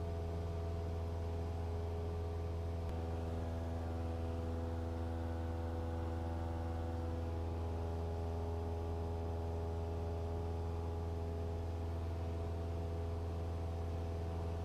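Cessna 172's piston engine and propeller droning steadily at climb power, heard from inside the cabin: a constant low drone with an even, unchanging pitch.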